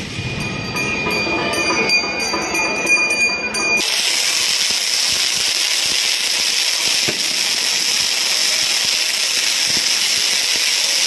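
Burning ground firework giving off a steady, loud hiss. For the first four seconds there are high whistling tones with a regular crackle, then the sound changes abruptly to the even hiss.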